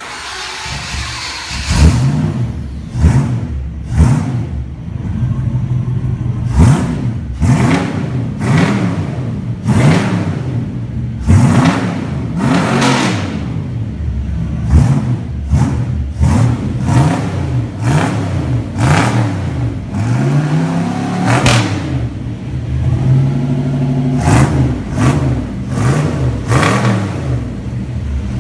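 Chevrolet engine revved again and again through an aftermarket sports exhaust: many quick blips that rise and fall in pitch, with the idle running between them, and a few longer, higher revs near the middle and near the end.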